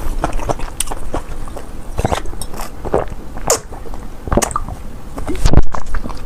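Close-miked chewing of Buldak fire noodles rolled in liangpi (cold-skin noodles): irregular wet smacks and squelches of a full mouth.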